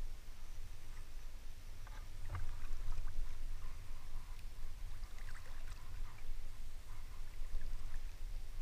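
River water lapping and trickling over a steady low rumble, with a few faint small splashes and ticks.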